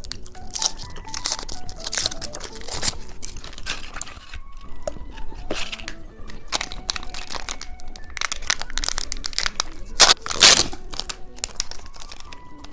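Candy wrapper crinkling and crackling in a run of sharp rustles, with a loud burst about ten seconds in, over soft background music.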